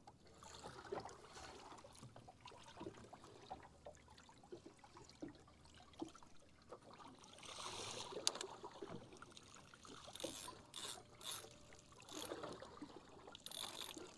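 Faint water lapping and trickling against the hull of a small drifting boat, with several light clicks near the end.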